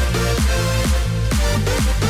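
Upbeat electronic dance music with a steady beat and bass notes that slide down in pitch at each hit.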